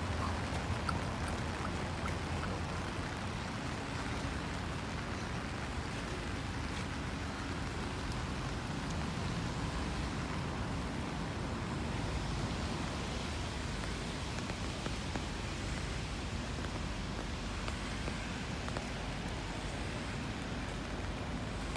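Steady street ambience while walking: an even hiss with a low rumble underneath.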